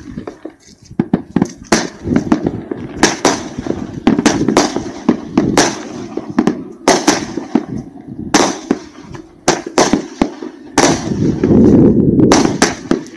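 Royal Party 'Battery Power Station' firework cake, 20 shots of 18 mm, firing: rapid launch thumps and sharp bangs of bursting shells with crackle, coming in irregular clusters. The densest and loudest stretch comes near the end.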